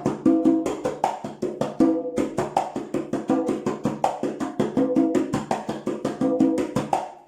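Congas played with bare hands in a fast, steady run of strokes, several a second: ringing open tones and slaps with muffled mazacote strokes, palm and fingertips in the middle of the head, filling the gaps between them. The playing stops abruptly near the end.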